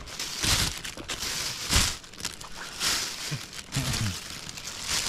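Banana leaves crinkling and rustling as a hand moves and sorts fish on them, in about four short bursts.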